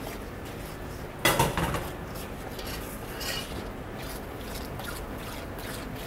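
A metal spoon stirring and scraping hush puppy batter of cornmeal and hot milk in a stainless steel mixing bowl, over a steady kitchen hum. About a second in comes a loud, ringing clatter of metal on metal, with a smaller clink a couple of seconds later.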